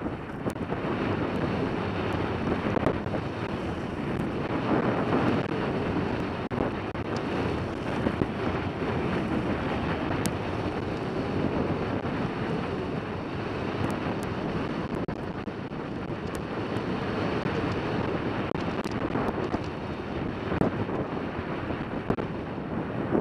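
Steady wind rushing over a helmet camera's microphone during a downhill ski run, mixed with the hiss of skis sliding on packed snow.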